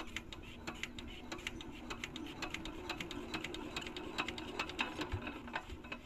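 8 HP Bharat diesel water-pump engine being cranked by hand to start it, giving rapid, irregular mechanical clicking several times a second as it turns over without firing.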